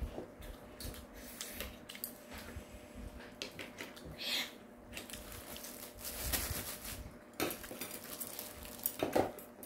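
Scattered light clinks and knocks of tableware being handled, with a louder stretch of rustling handling noise about six seconds in.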